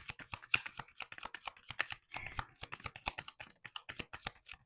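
A deck of tarot cards being shuffled by hand: a rapid, uneven run of card clicks and snaps.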